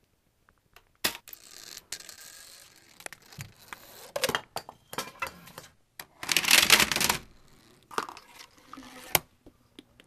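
Parts of a homemade Rube Goldberg machine knocking and clicking in turn: a sharp knock about a second in, then scattered knocks and rattles. About six seconds in comes the loudest sound, a dense clatter lasting about a second, as a row of plastic CD cases and picture frames set up as dominoes falls over.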